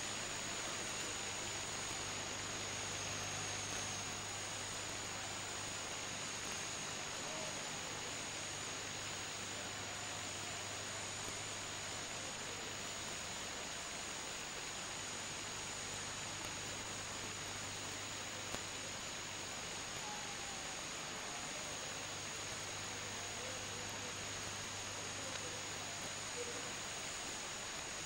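Steady hiss with a low mains hum and a constant high-pitched whine, the background noise of an old camcorder tape recording, with faint indistinct voices from the crowd underneath.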